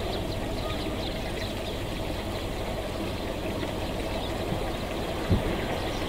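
Flock of Eurasian tree sparrows chirping and twittering, many short high calls overlapping, over a steady low background rumble. A brief dull thump about five seconds in.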